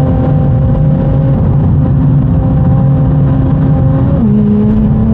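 Big-turbo BMW M140i straight-six engine running at a steady, even pitch, heard from inside the cabin while cruising. About four seconds in, the note steps down to a slightly lower pitch.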